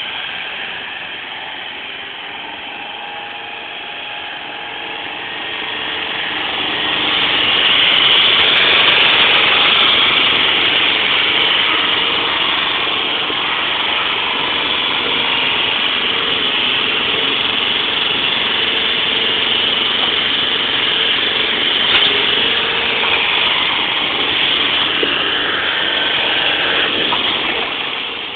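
Truck-mounted forklift's engine running as it drives, growing louder about seven seconds in and then holding steady.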